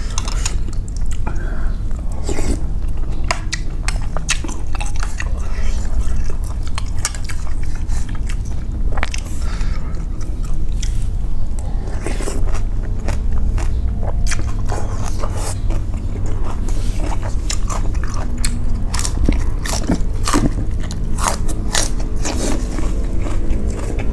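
Close-up eating sounds: a person chewing and biting into pork noodle soup with instant noodles and pork balls, many small wet clicks and crunches, over a steady low hum.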